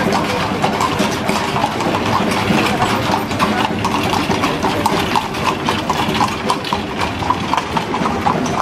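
Hooves of a four-horse team of dun horses clip-clopping at a walk on paving stones, many quick overlapping clops. A car engine runs slowly behind them.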